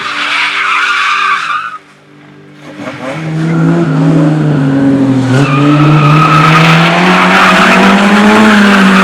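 Car tyres squealing as the car slides, cutting off abruptly about two seconds in. The engine then comes back up on the throttle and the tyres squeal again, engine and tyres held together through the rest.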